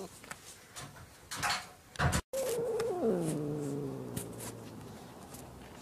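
A few faint clicks and a short bump, then a cat's drawn-out yowl just after two seconds in that falls steeply in pitch into a long low growl, slowly fading.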